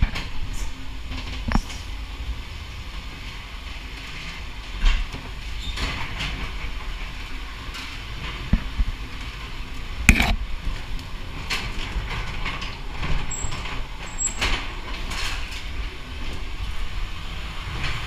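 Ghost train car rolling along its track through a dark ride, a steady low rumble broken by sharp knocks and bangs at irregular intervals, the loudest about ten seconds in.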